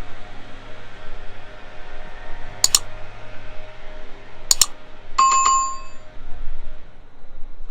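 A bell rings briefly about five seconds in: a few quick strikes, then a ringing tone that dies away within about a second. Under it runs a steady low hum, and two sharp clicks come a couple of seconds apart before the bell.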